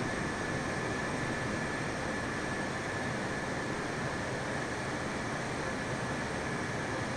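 Steady jet airliner engine noise: an even rush with a faint, constant high whine.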